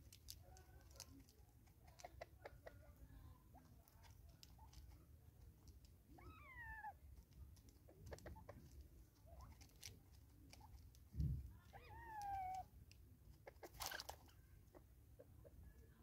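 Spurfowl pecking seed from a plastic bottle feeder: faint scattered clicks of beaks on plastic and seed. Two short, soft, falling calls come about six and twelve seconds in, and there is a low thump just after eleven seconds.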